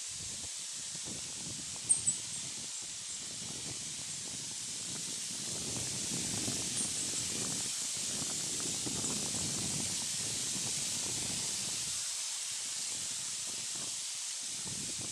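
Outdoor woodland ambience: a steady high-pitched hiss with two short, sharp high chirps about two seconds in, and a low rumble that swells through the middle.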